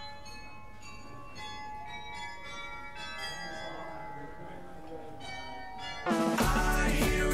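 Bells ringing, with many strikes at different pitches overlapping and ringing on. About six seconds in, loud background music with a beat suddenly starts over them.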